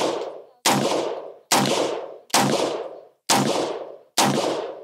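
Gunshots from an AR-15 pistol with a 7.5-inch barrel, fired singly at a steady pace of about one a second: five shots, each fading out over most of a second before the next.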